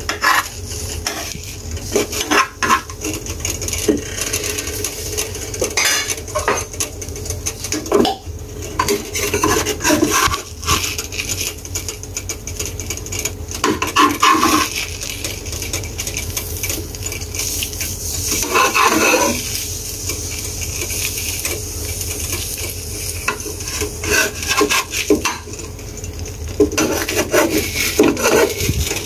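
A spatula scraping, pushing and knocking against a nonstick frying pan in irregular strokes as an omelette is turned and folded, over a steady sizzle of frying egg.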